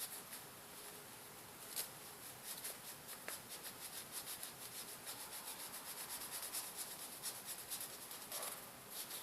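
Faint wiping strokes as old thermal paste is rubbed off a laptop's heatsink contact pads, quick and rhythmic at several strokes a second.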